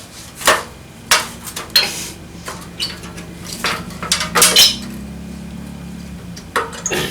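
Steel seat springs clinking and clanking against the metal seat frame as a spring is hooked in and stretched into place, in a string of irregular sharp metallic knocks.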